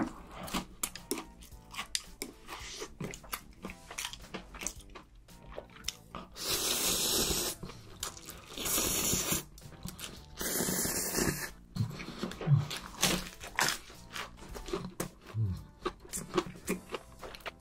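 Close-miked eating: crisp bites and chewing of a fried, crumb-coated corn dog, with three long noodle slurps through the middle.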